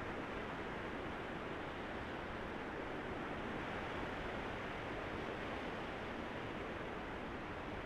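Steady rushing of sea surf, even and unbroken, with no separate wave breaks or other events standing out.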